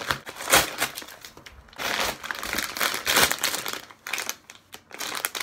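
Padded mailing envelope and the tissue paper wrapped inside it crinkling and rustling as the parcel is opened and unwrapped, in irregular bursts with short pauses.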